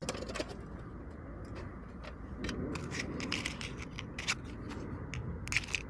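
Wood campfire burning, with irregular sharp crackles and pops over a steady low rush of the flames.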